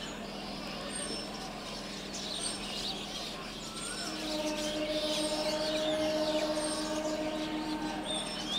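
An Indian Railways electric multiple unit (EMU) train idles at a platform with a steady low hum. A long, steady tone sounds for about four seconds from around the middle. Birds chirp and people's voices come from the crowd.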